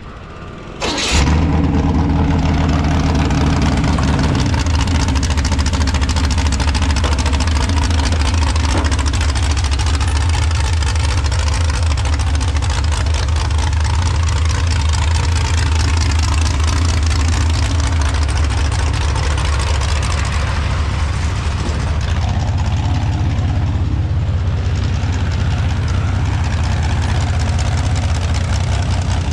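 Mini rod pulling tractor's engine catching with a sudden sharp onset about a second in, then running loud and steady.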